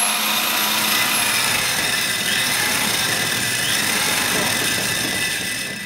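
Handheld electric diamond core drill running steadily, its core bit grinding into a wall. The sound falls away right at the end as the drill is stopped.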